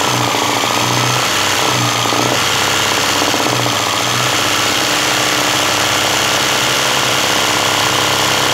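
Sewing machine running steadily at high speed, stitching machine embroidery as the fabric is guided under the needle to fill in a leaf motif.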